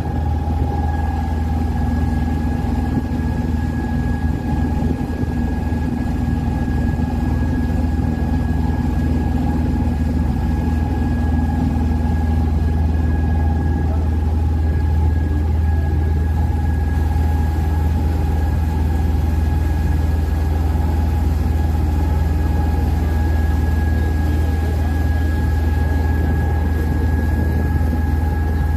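Open passenger boat's engine running steadily underway: a deep, even drone with a steady higher whine over it.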